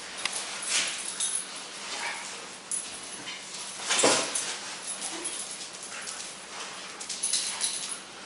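Siberian huskies whimpering and yipping excitedly while greeting a person, with a louder cry about four seconds in.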